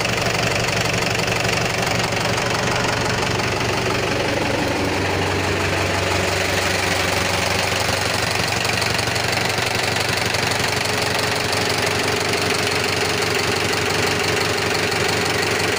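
A Mahindra 475 DI Sarpanch tractor's four-cylinder direct-injection diesel engine idling steadily, heard close up at the open engine bay.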